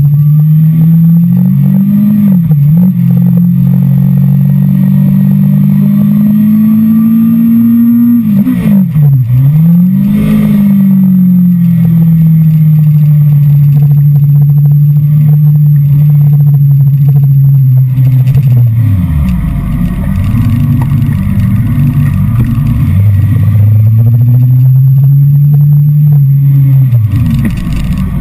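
A Kawasaki sport motorcycle engine recorded on board, running at steady moderate revs with its pitch rising and dipping under throttle and gear changes. A little past halfway it falls to a low, rough rumble as the bike slows. The revs pick up and hold again, then drop near the end.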